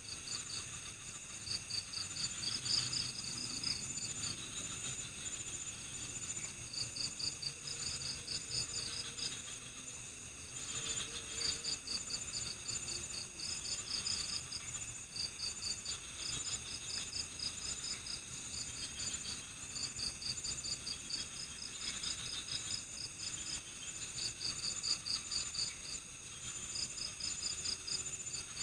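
Crickets chirping in a night-time forest chorus: repeated pulsed trills in bouts of a second or two, over a steady high-pitched insect drone.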